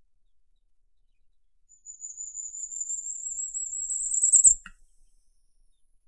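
Firecrest (Regulus ignicapillus) singing one song: a run of very high, thin notes lasting about three seconds, growing louder toward the end and stopping abruptly with a brief click.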